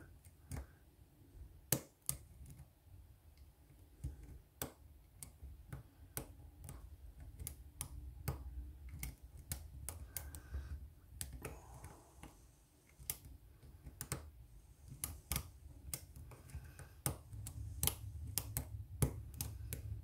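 Small metallic clicks at irregular intervals, a dozen or more sharp ones scattered through, from a short hook pick working the pin stack of a euro-profile cylinder lock held under tension from a tension wrench, over a low handling rumble.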